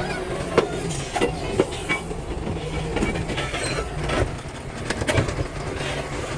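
Excavator engine running steadily while the bucket knocks against broken rock, giving a series of sharp clanks, the loudest about half a second in and again around five seconds in.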